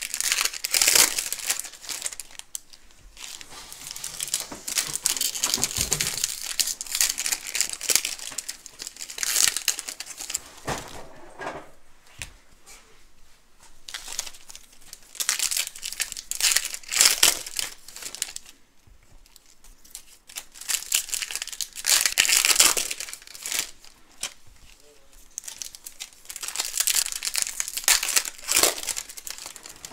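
Wrappers of 2015 Topps Valor football card packs being torn open and crinkled by hand, in repeated spells of crackling a few seconds apart.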